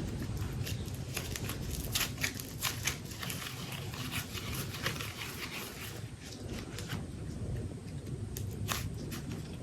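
Hands handling super light modelling clay and its plastic packaging: irregular soft crinkles and sharp little clicks over a steady low hum.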